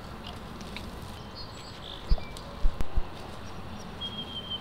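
Outdoor ambience with a steady hiss and a few small bird chirps, a thin high whistle near the end, and a handful of soft low thumps a little past halfway.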